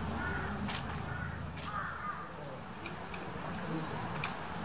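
A bird calling three times in quick succession, short arching calls, with a few sharp clicks around them.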